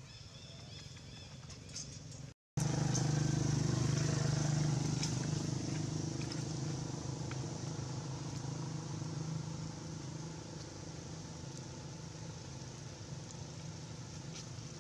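An engine running with a steady low hum, loudest just after a brief cut-out about two seconds in, then slowly fading.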